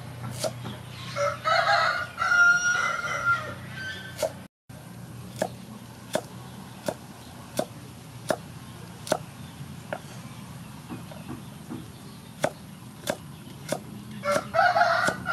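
Kitchen knife chopping carrot on a wooden cutting board, a sharp knock about every 0.7 seconds. A rooster crows loudly twice, once near the start and again near the end.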